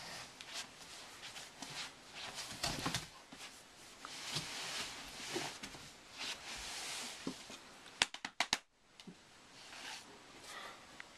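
Rustling and shuffling of clothing and bodies moving close to the microphone, with camera handling noise. About eight seconds in comes a quick run of four or five sharp clicks.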